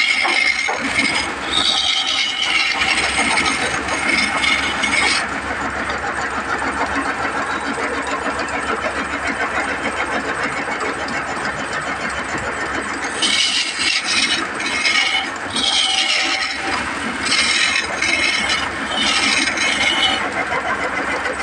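Wood lathe running while a hand-held turning tool cuts the spinning wooden blank, a harsh scraping cut with shavings flying off. The cutting stops after about five seconds, leaving only the lathe running, and starts again about 13 seconds in for several seconds.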